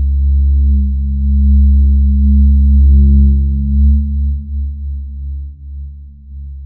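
Low, steady electronic drone of several held tones, a synthesized ambient music bed, easing off after about four seconds.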